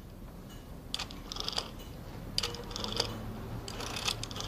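Rotary telephone dial being turned and clicking back, digit after digit, in short clicking runs about a second apart.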